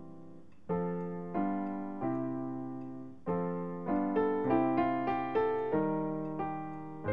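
Gentle solo piano music: struck notes that ring and fade, played slowly at first and coming quicker in the second half.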